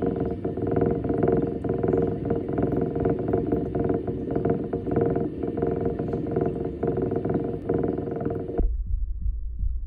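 Steady mechanical hum with rushing, churning water, the sound of a lure-test flow tank circulating water past a spinning spinnerbait. With about a second to go it cuts off abruptly, leaving only a low throbbing rumble.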